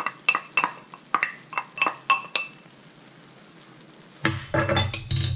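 A wooden spoon tapping and scraping inside a small drinking glass to knock out the last of the saffron water: a quick run of about ten light clinks with a short ring. Near the end, about a second of louder knocking and rustling handling noise.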